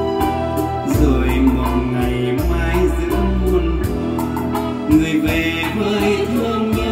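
Music from a test tape playing on an S-VHS deck: a song with a singing voice over sustained chords and a steady bass.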